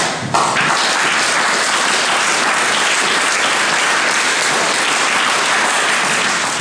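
Audience applauding in a hall, a steady clatter of many hands that starts just after the beginning and dies away near the end.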